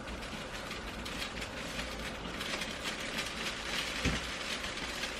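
A seasoning shaker canister of Tony Chachere's Creole seasoning being shaken over a pan of hash browns, a fast, irregular rattling of grains through the shaker lid. There is one soft knock about four seconds in.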